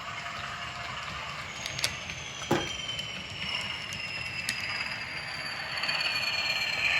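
OO gauge Class 20 diesel model locomotive with a factory-fitted DCC sound decoder, coasting down after being shut off. Its running sound carries a whine that falls steadily in pitch as the loco slows, and a few sharp clicks come in the first half.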